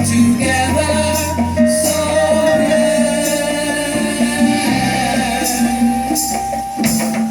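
Music with singing: a held vocal melody over a bass line, with a tambourine or shaker keeping the beat.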